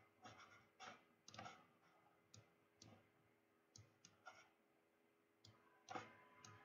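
Faint, irregular clicks of a computer mouse, about eight in a few seconds, over a faint steady electrical hum.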